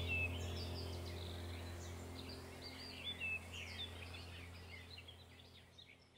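Small birds chirping and twittering over a low steady drone; both fade out together to near silence near the end.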